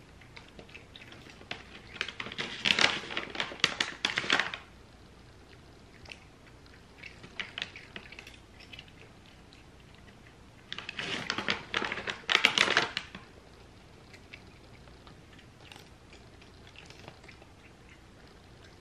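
Plastic cat-treat pouch crinkling and rattling twice as dry treats are shaken out. Between the bursts come fainter scattered clicks of a cat crunching dry treats.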